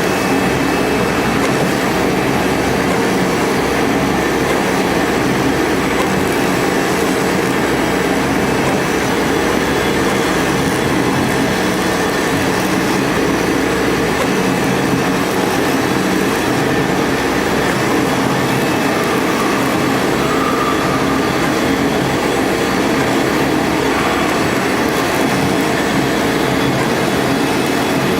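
CNC machine running steadily as it cuts KT foam board: an even, unbroken mechanical noise with steady hum tones.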